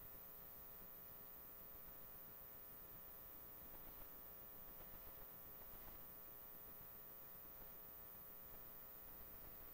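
Near silence: a steady electrical mains hum, with faint, distant speech now and then.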